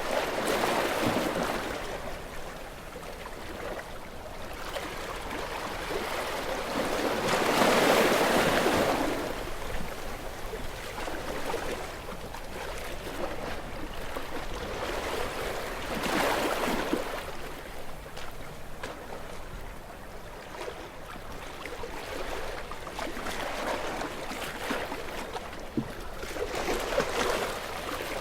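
Sea waves breaking against rocks, each wave swelling and washing back off about every eight seconds. There are four surges, the loudest about eight seconds in.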